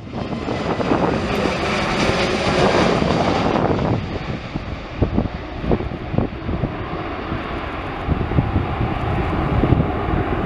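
Airbus A320neo's Pratt & Whitney PW1100G geared turbofan engines at takeoff thrust: a loud rushing jet noise during the takeoff roll, dropping about four seconds in to a lower, duller rumble as the airliner climbs away. Irregular low thumps of wind on the microphone run through the later part.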